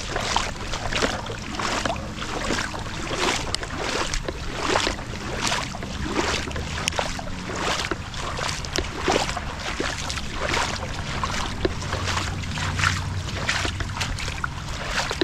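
Rushing floodwater: a continuous, irregular splashing with a faint steady low hum beneath it.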